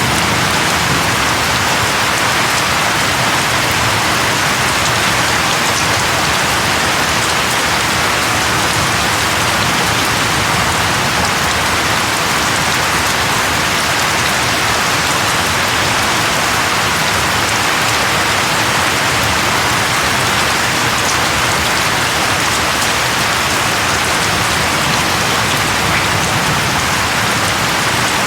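Steady, heavy rain falling and pattering on surfaces, an even hiss with no let-up.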